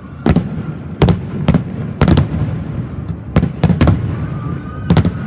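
Aerial fireworks shells bursting: about nine sharp booms in irregular succession, some in quick pairs, each trailing off in a low rumble.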